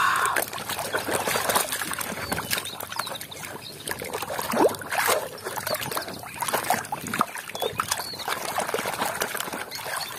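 Muddy water sloshing and splashing in a plastic tub as a toy is dipped and rubbed clean by hand, with irregular small splashes and gurgles.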